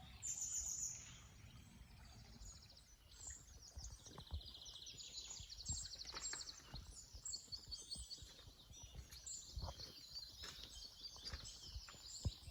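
Small songbirds singing and chirping, with a fast trill of rapidly repeated high notes a few seconds in, over faint outdoor background noise. Soft low knocks sound here and there underneath.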